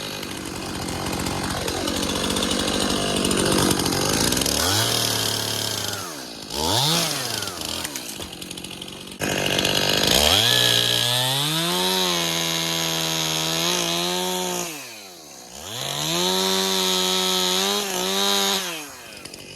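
STIHL MS 291 two-stroke chainsaw cutting a storm-broken tree branch. The engine labours at lower speed for the first few seconds, then revs high with brief dips in between, and drops away near the end.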